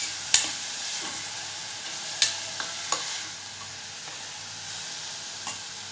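Banana flower stir-fry sizzling in a pressure cooker pan while a steel ladle stirs it, with a few sharp knocks of the ladle against the pan.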